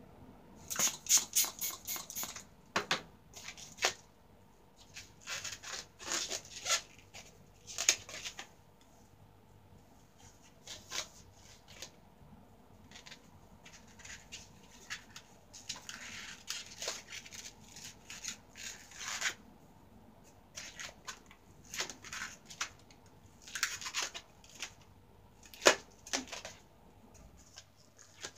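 Hands handling long latex twisting balloons and pink material: irregular rustling and rubbing clicks in bursts, with one sharp louder click a little before the end.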